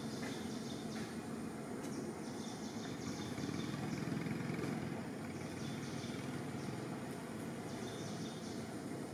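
Outdoor forest ambience: a steady low rumble of background noise, with stretches of high chirping about two seconds in and again near the end.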